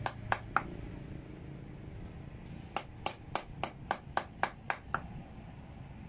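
Small hammer striking a thin steel rod laid on a wooden stump: short ringing metal blows about four a second. Three blows, a pause of about two seconds, then a run of about nine more.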